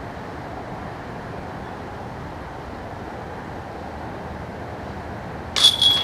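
A steady rush of outdoor noise, then near the end a flying disc strikes a metal disc golf basket: two sharp metallic clanks close together, with the chains ringing briefly after.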